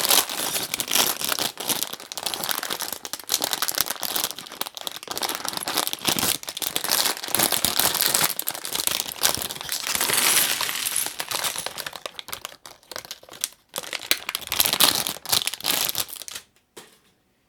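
Crinkling and rustling of a brick set's packaging, with many small clicks mixed in. It stops abruptly about a second before the end.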